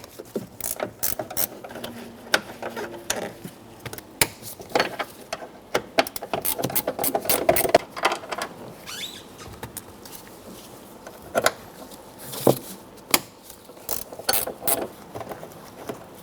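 Hand ratchet clicking in irregular runs as the 12 mm door hinge bolts are backed out, with a few louder metallic clicks and knocks among them.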